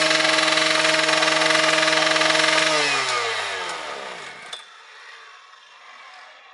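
Cembre Robokatta automatic rail saw's petrol engine running steadily at high speed with its abrasive cutting disc spinning, then cutting out a little under three seconds in; the pitch falls away over about a second and a half as engine and disc wind down, ending in a small click.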